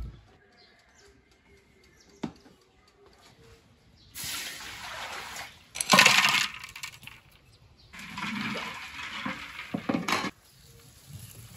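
Lumps of rock sugar dropped into water in a wok, splashing and clinking, about six seconds in; this is the loudest sound. Around it are two stretches of splashing water, with a few sharp knocks near the end.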